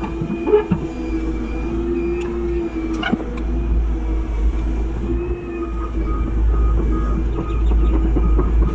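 Volvo excavator's diesel engine and hydraulics running steadily as the arm and bucket move, heard from inside the cab, with a couple of short knocks about half a second and three seconds in. It grows a little louder near the end.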